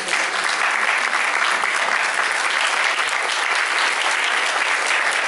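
Audience applauding, a steady crowd of clapping hands.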